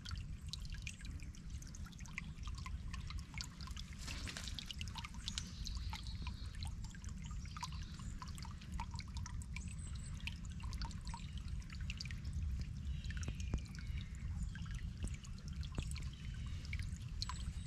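Shallow creek water trickling and dripping over stones and gravel, a steady stream of small splashes, over a steady low rumble.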